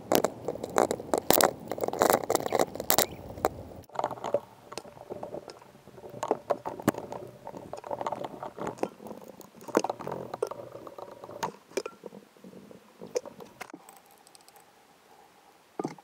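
Soapy toothbrush scrubbing a Suzuki Burgman 400's rear brake caliper to clean it: quick wet bristle scrapes with many sharp clicks, in several spells, loudest in the first few seconds.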